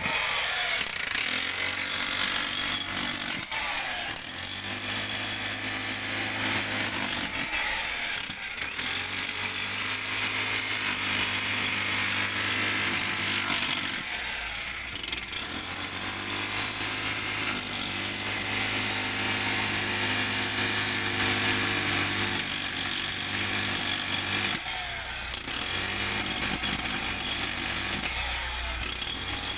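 Handheld demolition hammer (jackhammer) rattling steadily as it breaks up ground in a trench, stopping briefly about five times, near 3, 8, 14, 25 and 28 seconds in.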